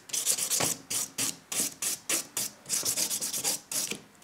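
Nail buffer block rubbed in quick back-and-forth strokes over a fiberglass-repaired nail, polishing it smooth: short hissing strokes, a few a second with brief pauses, stopping just before the end.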